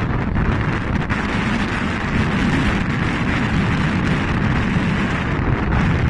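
Blizzard wind blowing hard and steadily, buffeting the microphone with a deep rumbling rush.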